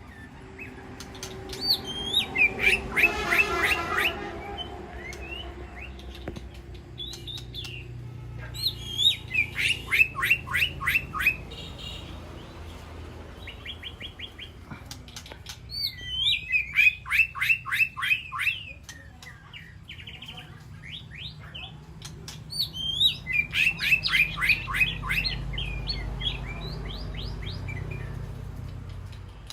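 White-rumped shama singing in four bouts, each a fast run of quick repeated downward notes lasting a few seconds, with short whistled phrases between the bouts. A faint steady low hum lies underneath.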